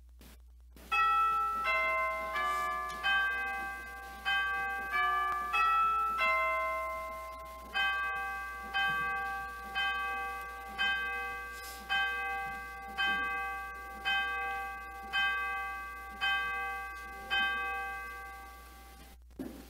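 Church chimes ringing: a short melody of eight struck notes in two phrases of four, then one bell note struck about once a second, around ten times, each stroke ringing out and fading.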